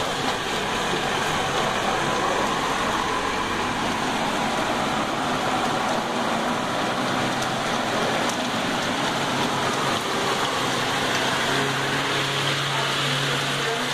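A truck driving through a flooded street in rain: the steady hiss of rain and moving water over the low hum of its engine, which grows stronger near the end.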